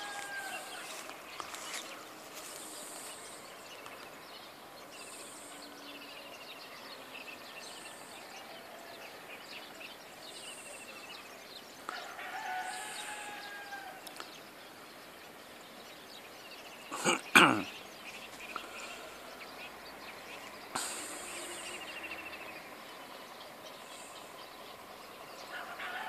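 A rooster crowing once about twelve seconds in and again right at the end, over a faint steady rural background with small birds chirping. A single short, loud knock about seventeen seconds in.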